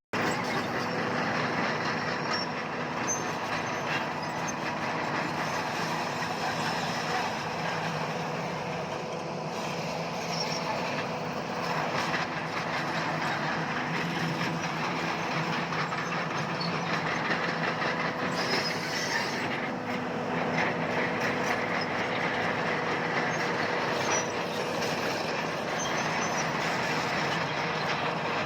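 Bulldozer working: its diesel engine runs steadily under load while the steel crawler tracks clatter and clank.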